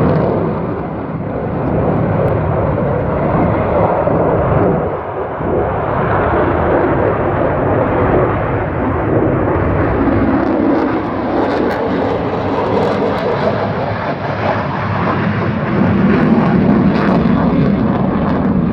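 Jet noise of an F-35B Lightning II flying past in a display: a loud, continuous roar from its single Pratt & Whitney F135 afterburning turbofan. It dips briefly twice in the first few seconds and swells again near the end.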